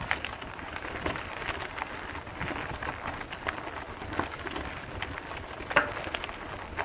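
Mountain bike riding over a rough dirt trail: tyres crunching over grit and stones, with frequent irregular clicks and rattles from the bike, the sharpest about six seconds in.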